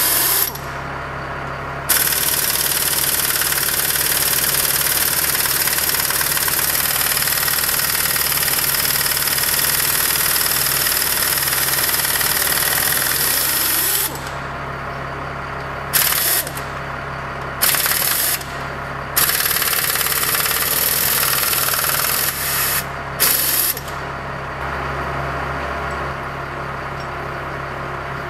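Pneumatic impact wrench hammering at the head of a Caterpillar D9G dozer's lift ram: one long run of about twelve seconds, then several short bursts. The steady hum of an idling engine runs underneath.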